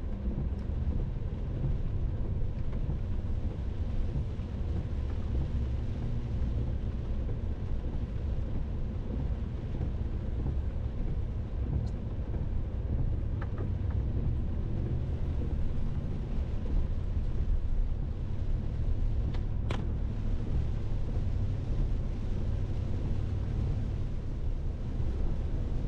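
Rainstorm ambience: a steady low rumble with an even hiss above it, and one sharp click about twenty seconds in.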